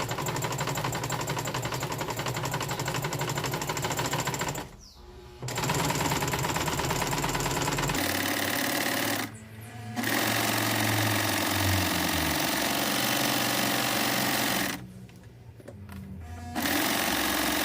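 Sewing machine stitching in long runs, the needle going rapidly, with short stops about five, nine and fifteen seconds in.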